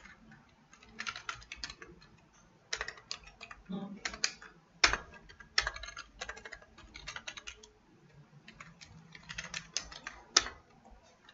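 Computer keyboard typing in short bursts of quick keystrokes with pauses between them. A couple of keys are struck noticeably harder than the rest.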